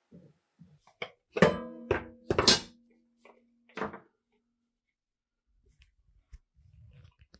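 Several sharp knocks, the loudest two about a second apart, with a low tone ringing on for about a second after them. Soft low handling noises follow near the end.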